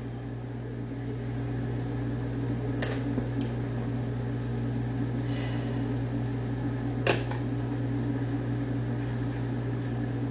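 Steady mechanical hum from a running kitchen appliance motor, with two short sharp knocks about three and seven seconds in.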